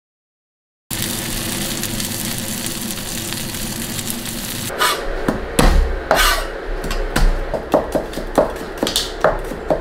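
A cod steak sizzling in hot oil in a frying pan with a steady hiss. A little before five seconds in it gives way to a Chinese cleaver chopping on a wooden cutting board, sharp knocks about two or three a second.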